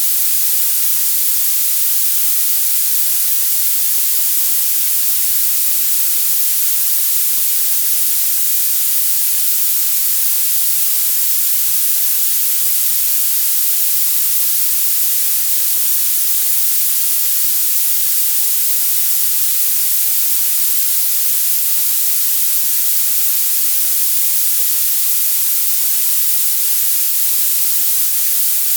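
Violet noise: a steady, unchanging hiss with its energy piled into the highest frequencies and almost nothing in the lows, heard as a sharp, thin, bright sizzle.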